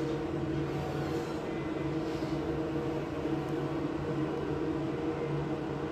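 Steady electric machine hum with a constant low droning tone and overtones over a light hiss, from a washroom.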